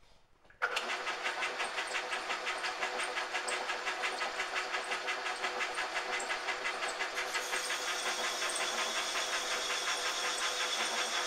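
Metal lathe switched on: the motor and spindle drive start suddenly about half a second in and run steadily with a fast, even rattle. A higher whine joins about seven seconds in.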